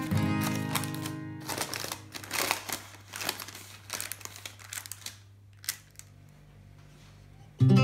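Baking parchment crinkling and rustling in irregular bursts as hands press pastry dough into a parchment-lined tart dish. Background music fades out in the first second or so, and guitar music comes back in loudly near the end.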